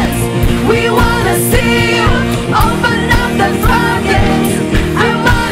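Live contemporary worship band music: a female lead singer with backing vocalists singing the chorus together over the band and a steady beat.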